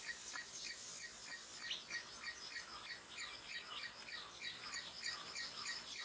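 Minivets calling: rapid short chirps, about three or four a second, with several birds overlapping.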